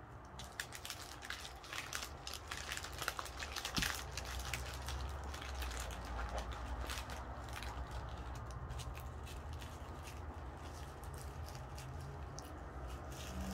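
Small plastic zip bags of diamond-painting drills crinkling and rustling as they are handled, the drills clicking inside them, busiest in the first few seconds. A low steady hum runs underneath.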